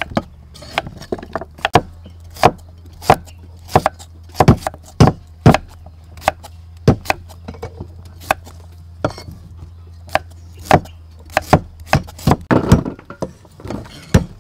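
A cleaver chopping carrot and white radish on a wooden stump chopping block: sharp knocks of the blade through the vegetable into the wood, at an irregular pace of about one to two a second, with a flurry of softer noises near the end.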